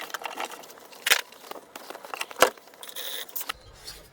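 Sped-up workshop handling noise of engine parts and tools: quick clattering and clicking, with two sharp knocks about a second and two and a half seconds in, and a short hiss just after three seconds.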